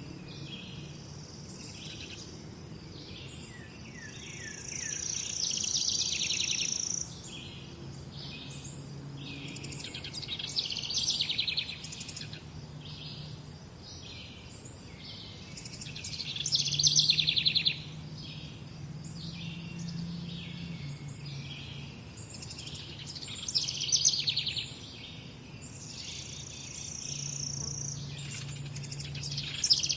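Several songbirds singing and calling over one another, a steady mix of chirps and trills with louder phrases every few seconds. A faint low hum sits underneath.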